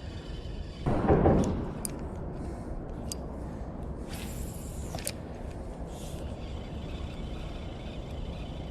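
Spinning reel being cranked to retrieve a small crankbait, a steady faint whir from about six seconds in, with a few light ticks earlier over low outdoor background noise.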